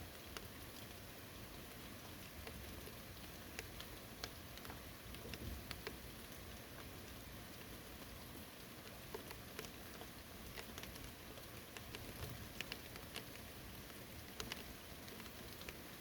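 Steady, faint rain falling, with scattered sharp drips of single drops at irregular moments.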